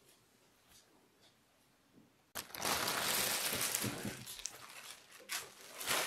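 Thin plastic sheet crinkling and rustling as it is handled and spread out by hand, starting suddenly a couple of seconds in and coming in bursts.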